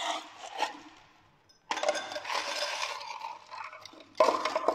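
Ice cubes being scooped from a metal ice bin and clattering into a glass: rattling and clinking, with a short pause about a second in and a sharper, louder clatter near the end.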